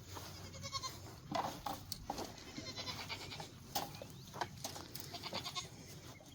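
Goats browsing on cut Japanese honeysuckle: scattered crackles and snaps of leaves and twigs being stripped and chewed, with a faint goat bleat.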